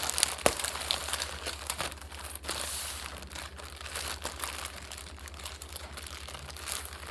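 Packaging being opened and handled: crinkling and rustling with short crackles, busiest in the first couple of seconds and fainter after.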